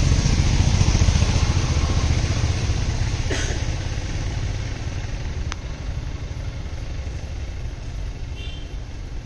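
A vehicle engine running steadily with a low hum that slowly fades away, with a brief knock and a sharp click partway through.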